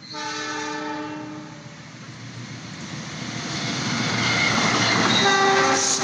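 KAI CC206 diesel-electric locomotive sounding its multi-tone horn in a long blast, then the train coming up and passing with swelling engine and wheel noise, and a second, shorter horn blast near the end.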